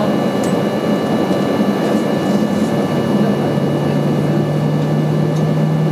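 Boeing 737-800's CFM56 jet engines running steadily at low power, heard inside the cabin as the airliner taxis, with a thin high whine over the rush. A low steady hum joins about three seconds in.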